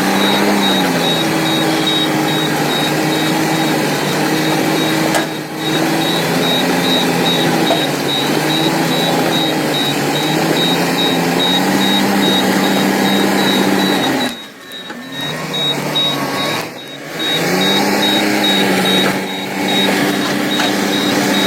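Diesel engine of heavy earthmoving machinery running under load, its pitch rising and falling as the throttle changes. A rapid, high-pitched beeping runs alongside it.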